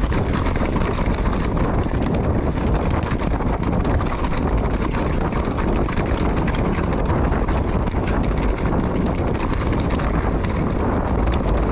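Mountain bike rolling down a rocky trail: a steady rattle of tyres, chain and frame over stones, with many small clicks and knocks. Wind buffets the action camera's microphone throughout.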